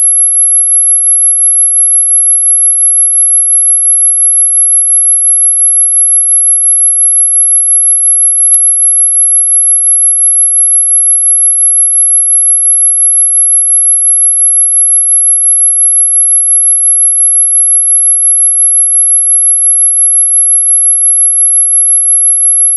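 Super high-pitched whistle tone: a single pure, unwavering electronic pitch held steadily, with one brief click about eight and a half seconds in.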